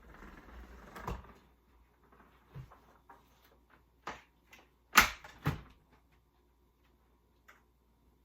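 A few sharp knocks and clicks, like household objects being handled. The loudest is a pair of knocks about five seconds in.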